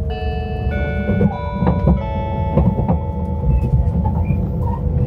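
Train running with a steady low rumble and regular clicks from the rails. Over it, during the first three seconds or so, a short electronic chime of held notes that changes pitch twice.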